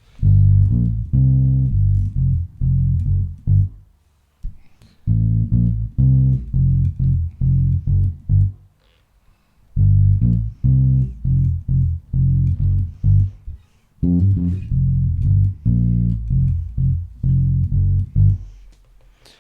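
Dingwall ABZ 4 passive four-string bass played solo and recorded direct, both pickups in series with the tone control rolled back for a fatter, rounder sound: four short phrases of low plucked notes with brief pauses between them.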